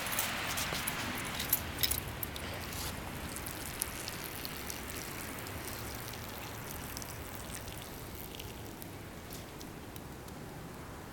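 Metal dog tags on a puppy's collar jingling, a quick cluster of small clinks in the first three seconds and a few more later, over a steady hiss that slowly fades.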